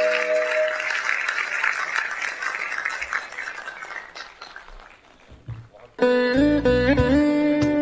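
A sustained final chord ends about a second in, under audience applause that fades out over the next few seconds. After a brief near-silent gap, outro music starts suddenly about six seconds in.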